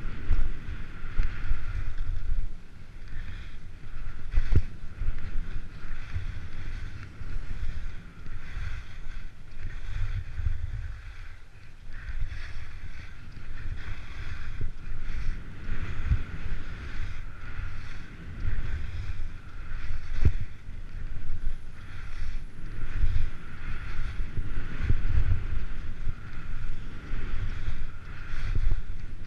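Wind buffeting the microphone of a skier's GoPro Hero 3 on a downhill run, a gusty low rumble, over the steady hiss of skis running on snow, with a few sharp knocks.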